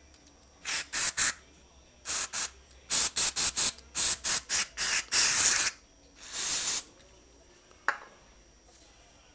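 Aerosol cleaner sprayed in a run of short hissing bursts through a straw nozzle into a motorcycle fork part, flushing out leftover dirty fork oil; one longer burst about halfway through. A single sharp click near the end.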